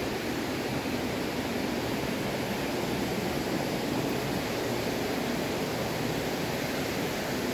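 Steady rushing background noise, like moving air or water, with no distinct sounds standing out.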